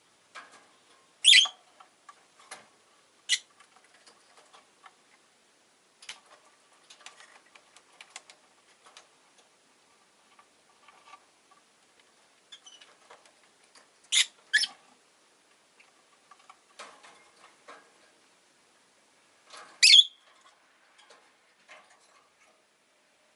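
Rosy-faced lovebird giving short, sharp, high-pitched chirps: one about a second in, another near three seconds, a quick pair around fourteen seconds and one near twenty seconds. Faint clicks and light rustling fill the gaps between calls.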